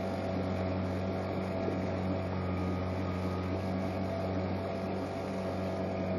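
A small sailboat's motor running steadily, pushing the boat along under power with the sails down: a constant low drone with a steady hum.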